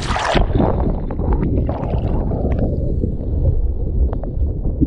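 Water rushing and gurgling around an action camera mounted low on a windsurfing board planing at speed, with a low rumble. About half a second in, the sound turns suddenly muffled as the camera goes into the water and spray, with a few sharp clicks.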